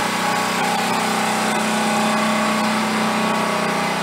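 Generator engine running at a steady speed, a constant droning hum.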